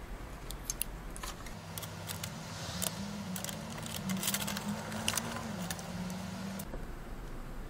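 Small, irregular clicks and taps of hands handling parts at a motherboard's CPU socket area, stopping abruptly near the end.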